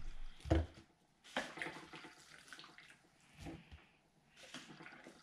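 Black plastic slotted spoon knocking and scraping in a slow cooker as wet shrimp boil is scooped out, with juices splashing and dripping. There are several separate knocks.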